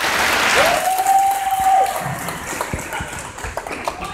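Group applause in a gymnasium, with one long, steady, high-pitched call from the crowd about half a second in; the clapping thins out into scattered claps toward the end.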